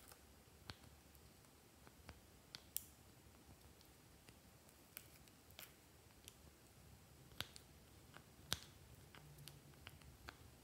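Faint, irregular light clicks and taps of a small plastic spatula against a plastic makeup palette and a glass dish as makeup is scooped out and dabbed onto slime, over a near-silent background.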